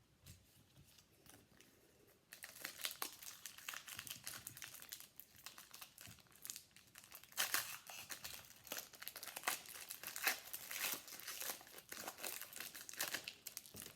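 Plastic wrapper of a Donruss football card pack crinkling as it is torn open and handled, starting about two seconds in, with a few louder crackles near the middle and end.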